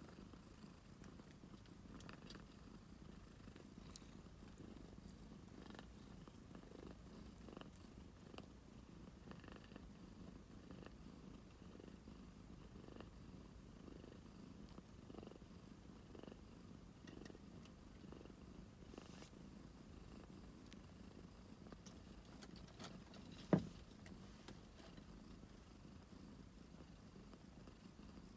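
Domestic cat purring faintly and steadily, with one sharp click about three-quarters of the way through.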